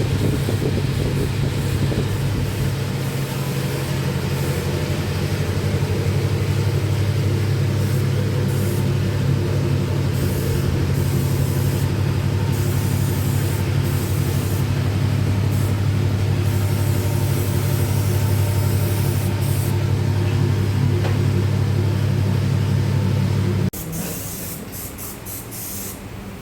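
Motor-driven high-pressure spray at a bike service bay: a steady motor hum under a loud hiss that cuts off abruptly about 24 seconds in.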